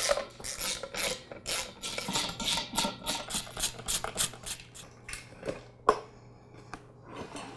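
Socket wrench ratcheting in quick, even clicks, about four a second, as it backs out the bolts that hold an air compressor pump to its tank. The clicking stops about five seconds in and is followed by a couple of sharp knocks.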